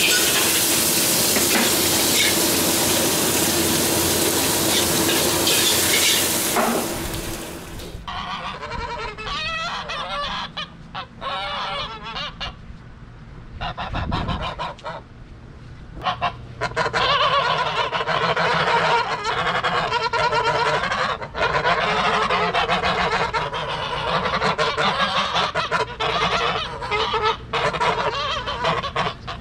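Stir-frying in a hot wok, a loud, even sizzle that stops about 7 seconds in. Then white domestic geese honk again and again, faint at first and louder through the second half.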